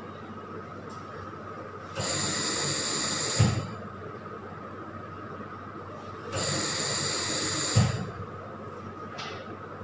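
Anaesthesia machine's bellows ventilator cycling on its own: a hiss of gas lasting about a second and a half, ending in a short thump, comes twice about four and a half seconds apart, with a lower steady hiss in between.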